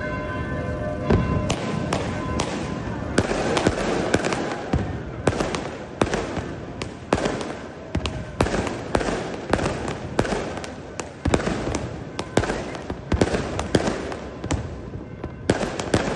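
Fireworks and firecrackers going off in a dense, irregular run of bangs, at times several a second. A bell's ringing dies away in the first second or so.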